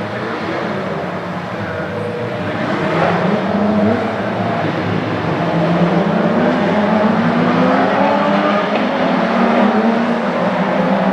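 Porsche sports car engines accelerating hard on a racetrack, their pitch climbing again and again through the gears, getting louder about three seconds in as the cars come closer.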